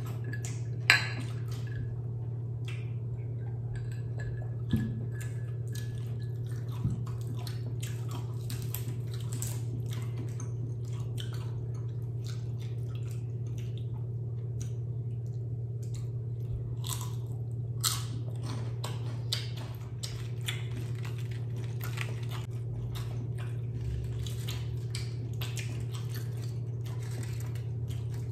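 Close-up crunching and chewing of crispy fried chicken skin and bagnet (deep-fried pork belly), many short crisp crunches, over a steady low hum. One sharp knock about a second in.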